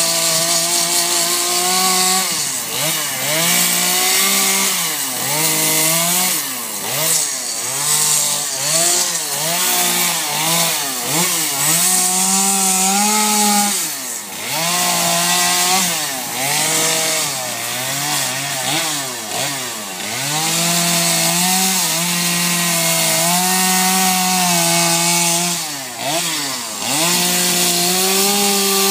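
Two-stroke chainsaw cutting into wood, the engine revving up and falling back over and over as the chain bites in and lifts out, with a hiss of cutting over the top.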